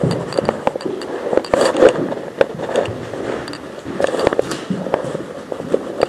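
Footsteps crunching over fallen plaster and debris, with gear and clothing rustling and irregular scrapes and knocks.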